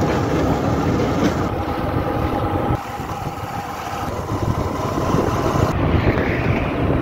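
Motorcycle engine running under way with wind buffeting the microphone. The sound changes abruptly a few times as short riding clips are cut together.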